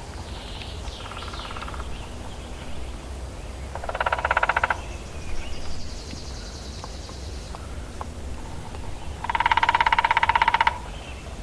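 Woodpecker drumming on a tree: a short, rapid roll about four seconds in and a longer roll near the end. Between the rolls a thin, high bird trill, with faint bird calls near the start.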